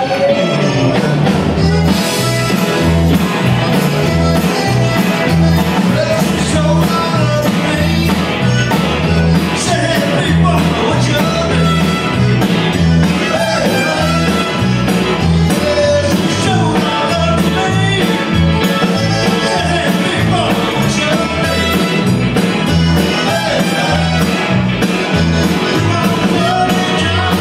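Tex-Mex rock band playing live, with electric guitar, accordion, keyboard, bass and drums over a steady beat.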